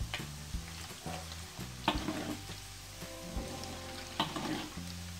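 Hot oil sizzling and bubbling in a wok with its burner just turned off, as crispy fried batter crumbs are scooped out with a wire mesh strainer. Several sharp clicks of the strainer knocking against the wok come through the sizzle.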